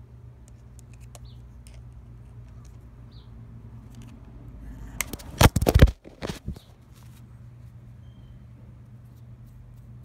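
A loud burst of close knocks and rubbing from handling, lasting about a second around halfway through, with a few more knocks after it. Faint scattered clicks and a steady low hum come before and after.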